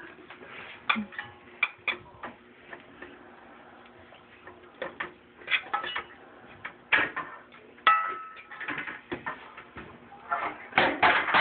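A metal spoon clinking and scraping against a stainless steel saucepan in irregular taps, stirring butter and flour together into a roux.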